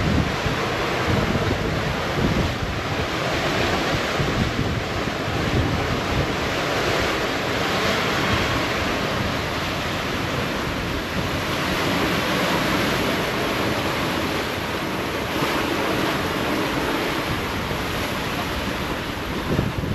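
Waves and strong wind rushing around a sailboat under way in rough seas, with wind buffeting the microphone: a loud, continuous rush that swells and eases slightly.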